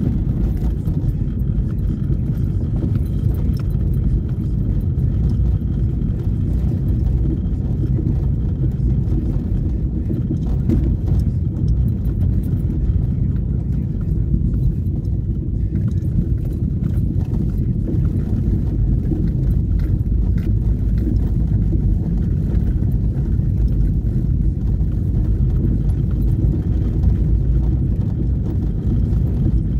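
Car driving over cobblestone paving: a steady low rumble of tyres on the stones and road noise.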